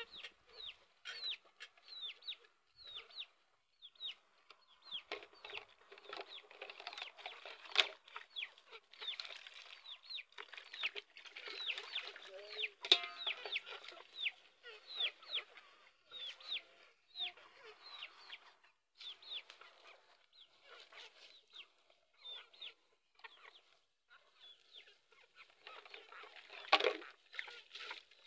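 Chickens calling in many short, high, falling chirps that come in quick runs. A few sharp clinks and splashes come from cups being washed in a pot of water, the loudest about halfway through and near the end.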